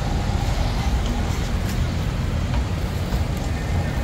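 Busy street ambience: steady road-traffic noise with the voices of a crowd mixed in.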